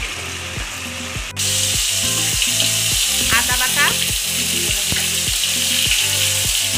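Oil sizzling in a kadai with whole spices tempering. About a second and a half in, something goes into the pan and the sizzle jumps suddenly to a much louder, steady hiss, with a spatula stirring.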